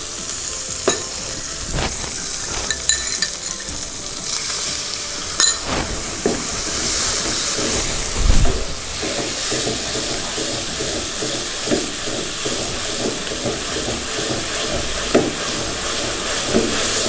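Chicken stock being stirred into fried red curry paste in a nonstick frying pan with a wooden spatula, the liquid sizzling and bubbling. The sizzle grows louder about six seconds in, with a few light knocks and scrapes of the spatula on the pan early on.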